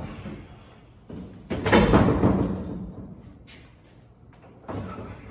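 A large plywood floor panel faced with pallet boards being levered up out of a pickup bed. It makes a loud wooden scrape and thump about a second and a half in that fades over about a second, and another bump near the end.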